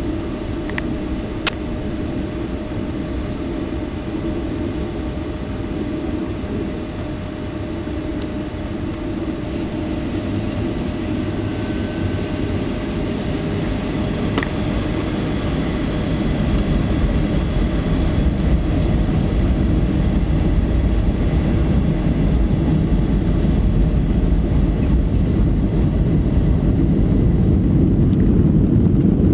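Cabin noise inside a Boeing 757-300 airliner taxiing onto the runway: a steady low rumble from the engines that grows gradually louder through the second half. A single sharp click sounds about a second and a half in.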